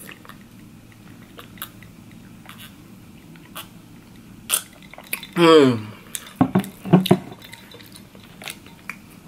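A man drinking from a glass of water with faint swallowing clicks, then a short vocal sigh falling in pitch about five and a half seconds in, followed by a few sharp clicks and knocks.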